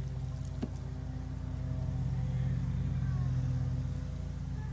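A motor running steadily, a low even hum, with a single click about half a second in.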